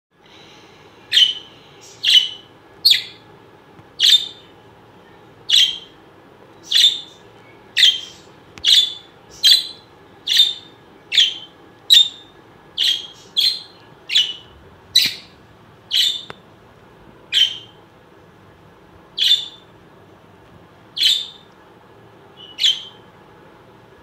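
A small pet parrot in a breeding cage giving about twenty short, sharp, shrill calls, roughly one a second, spacing out toward the end.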